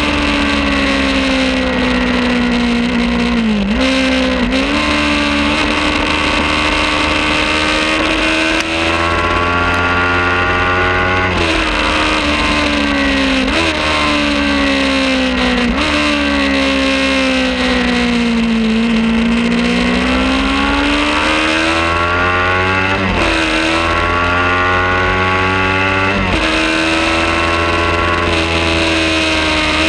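Kawasaki Ninja 400 parallel-twin engine at racing revs: the engine note climbs and falls through the gears, with sudden pitch changes at gear changes about seven times, over a steady rush of wind noise.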